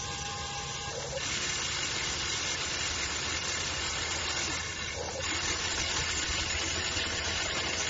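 Huina 1594 RC excavator's electric motors and gears whirring steadily as the boom and bucket move. The sound steps up about a second in and changes briefly around five seconds.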